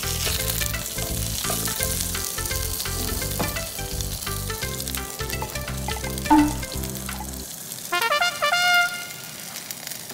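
Pan-fried gyoza still sizzling in hot oil in a frying pan as they are turned out onto a plate, over background music.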